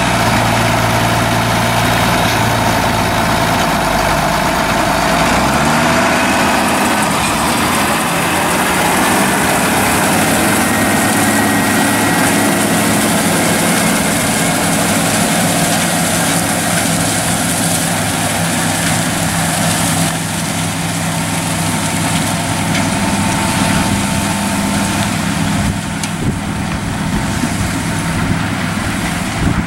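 International 5288 tractor's turbocharged six-cylinder diesel running steadily under load while pulling a Vermeer 605M round baler through cornstalks. About five seconds in the deep engine note drops away and its pitch bends upward as the tractor passes and moves off.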